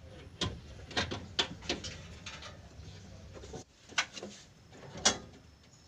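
Irregular sharp knocks and clicks of tools and engine parts being handled, about eight in all, the loudest about five seconds in.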